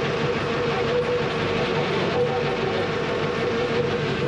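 Vehicle ferry's engine running steadily under way: a constant drone with a steady hum over an even rushing noise.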